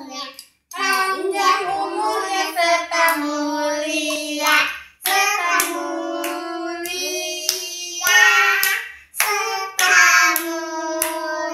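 Children's voices singing a birthday song together, with hands clapping along.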